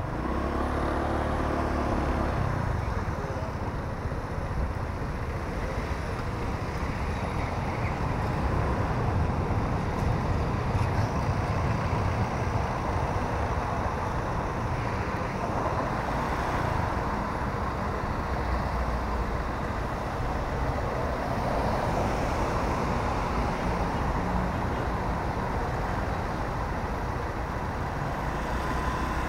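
Steady city traffic noise heard from a moving motor scooter: a continuous low rumble of engines and tyres with cars passing close by. A brief rising engine tone sounds right at the start.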